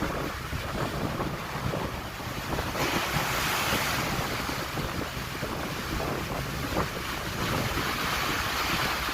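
Wind buffeting the microphone over the wash of sea water; the hiss of the water grows louder about three seconds in.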